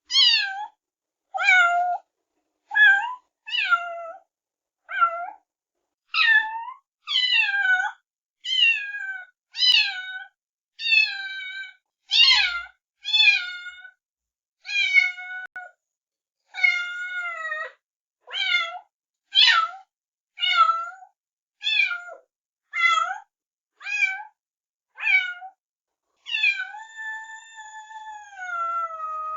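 Kittens meowing: a quick run of short, high-pitched mews about one a second, many dropping in pitch, then one long drawn-out mew near the end.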